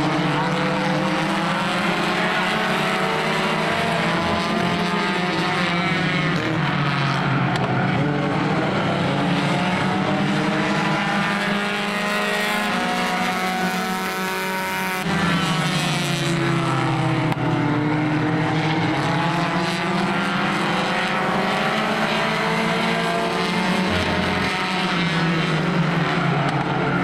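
A field of race car engines running together on an oval track, their pitch rising and falling in repeated swells as the cars accelerate and lift around the laps.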